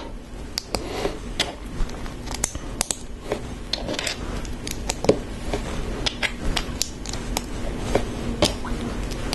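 LEGO plastic bricks being handled and pressed together: irregular small clicks and taps as pieces are fitted and snapped into place.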